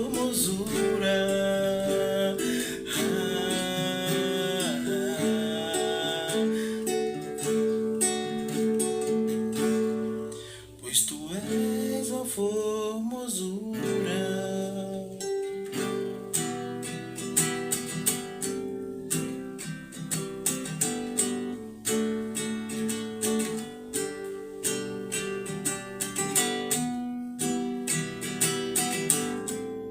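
Acoustic guitar strumming and picking an instrumental passage. A long sung note is held over it for the first few seconds, and regular strummed chords follow.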